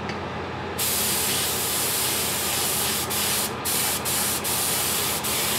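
Compressed-air gravity-feed spray gun spraying paint at 30 PSI: a steady hiss starts about a second in and is broken by several short gaps as the trigger is let off and squeezed again. A steady low hum runs underneath.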